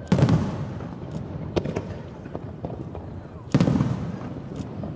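Aerial fireworks shells bursting. There are two big booms, one just after the start and one about three and a half seconds in, each trailing a low rumble. Sharper cracks come between them, and crackling near the end.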